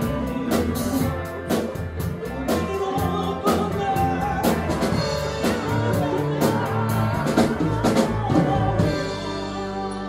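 Rock band playing live: drum kit keeping a steady beat under electric guitars, bass and singing. Near the end the drums drop out and a held chord rings on, a little quieter.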